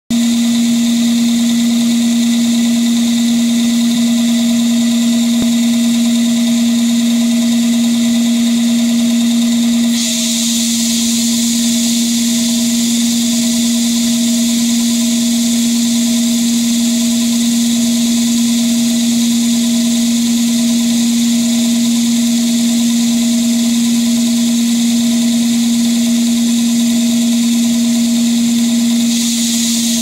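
Sawmill band saw running with a steady hum, its blade cutting lengthwise through a large log; the high hiss of the cut grows stronger about ten seconds in as the blade bites into the wood.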